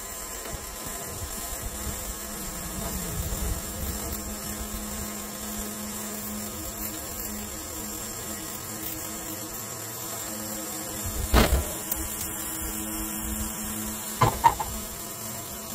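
Electric trailer winch running steadily, its motor giving a constant hum with a high whine as it reels in cable. Two sharp knocks on the steel trailer deck near the end.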